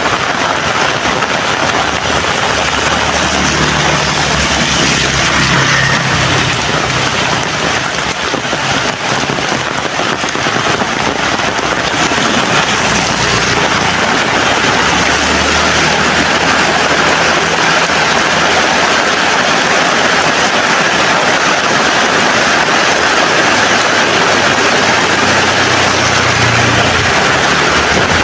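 Heavy rain falling steadily, a dense, even hiss of rain. A low engine-like hum rises and fades underneath it a few times.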